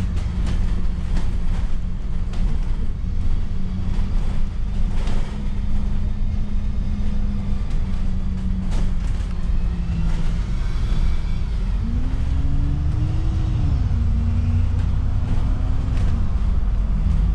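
Alexander Dennis Enviro400 City double-decker bus running along, heard from on board: a steady engine hum and road rumble with scattered brief rattles and knocks from the body. About twelve seconds in, the engine note rises, falls back and then holds steady a little higher.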